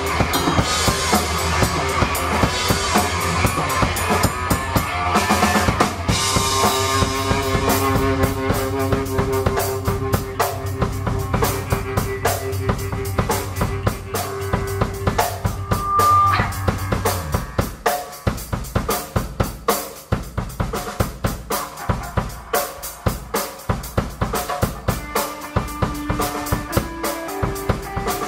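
A live rock band jamming with a drum kit, bass guitar and electric guitar, with no vocals. The drums keep up a steady beat throughout. Partway through, the low held bass notes stop, and the drums carry on with sparser guitar.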